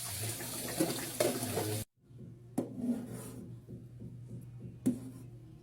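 Running tap water that cuts off abruptly, then a few light knocks of kitchen utensils or dishes being handled.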